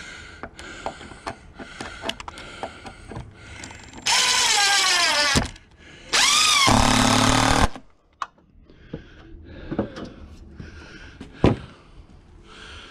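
Cordless drill running into a wooden beam in two bursts of about a second and a half each, its motor pitch dropping as it slows under load. Light knocks and clicks of handling come before and after.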